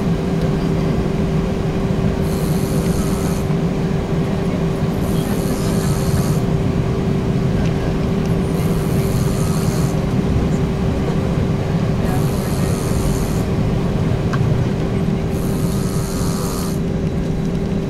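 A person snoring in deep sleep, a hissing breath about every three and a half seconds, over the steady drone and hum of an airliner cabin in flight.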